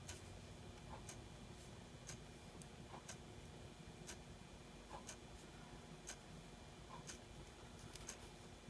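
Faint ticking of a clock, about one tick a second with alternating tick and tock, over a low steady room hum.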